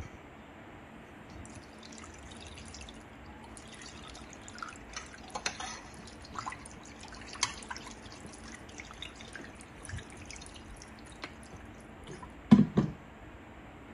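Water poured from a plastic bottle into a steel bowl of raw chicken, splashing and dripping unevenly. Two loud thumps come near the end.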